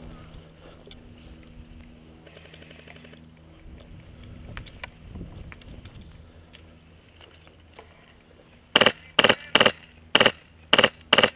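Airsoft rifle with a Polar Star HPA (high-pressure air) engine fired about seven times in quick succession near the end, each a sharp, loud pneumatic pop.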